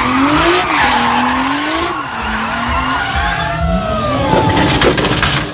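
Nissan Skyline GT-R R34's RB26 twin-turbo straight-six revving up and down repeatedly while the car spins donuts, with its tyres screeching against the pavement.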